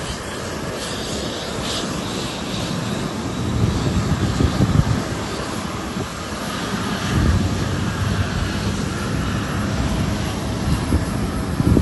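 Airbus A350-900's Rolls-Royce Trent XWB jet engines running, heard as a steady rush with a low rumble that swells a couple of times.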